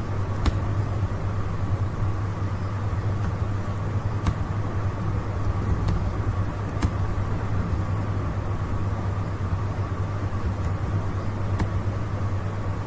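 Steady low hum and hiss of background room noise, with a handful of sharp, widely spaced computer keyboard and mouse clicks as a line of code is typed.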